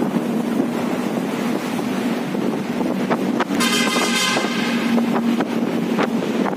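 Wind buffeting a phone's microphone over a steady rumble of traffic, with a brief high pitched tone about halfway through.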